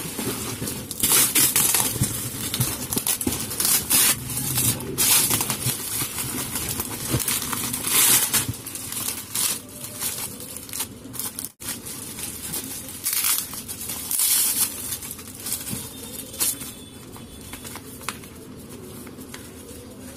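Plastic courier packaging being crinkled, rustled and torn open by hand in irregular bursts, quieter over the last few seconds.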